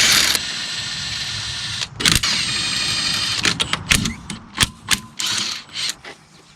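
Small electric power tool running in two stretches, broken by a sharp knock, while working on the wheel's lug nuts, followed by a series of separate metallic clicks and knocks.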